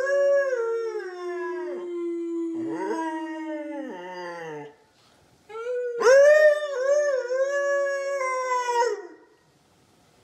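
Siberian husky howling in two long bouts, the second starting about halfway through, with a person howling along in a steadier, lower tone.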